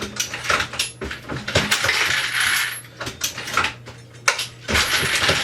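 Dillon XL650 progressive reloading press being cycled: rapid metallic clinking and clattering of brass cases and bullets, with a sharp click about four seconds in. A steady low hum runs underneath.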